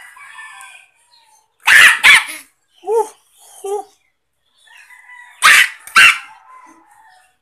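A dog barking in two quick pairs of loud barks, about two seconds in and again about five and a half seconds in, with two fainter short barks between.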